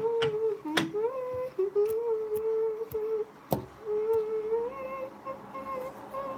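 A girl humming a slow tune in long held notes while brushing her teeth. Two sharp knocks cut in, one about a second in and one about halfway through.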